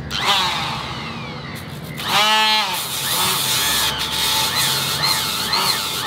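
Corded handheld electric power tool with its bit working inside the bore of a steel bucket-link end. The motor whine starts at once, starts again about two seconds in with a dip and recovery in pitch, then runs on with its pitch wavering as the tool is loaded.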